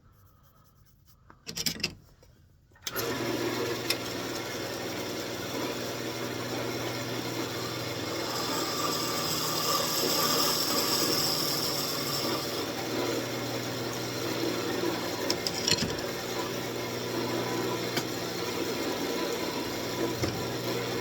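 Wood lathe motor starting about three seconds in and running steadily with a constant hum, the spinning workpiece adding a hiss that grows louder for a few seconds in the middle.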